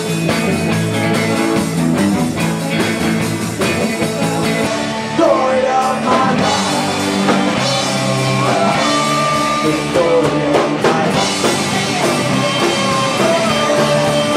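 Live rock band playing, with electric guitar and drum kit. A singer comes in about five seconds in, where the sound gets louder.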